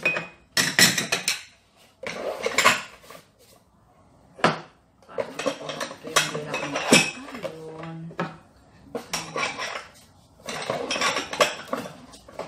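Cardboard box and paper wrapping rustling as items are pulled out by hand, with a few sharp knocks and clinks of crockery.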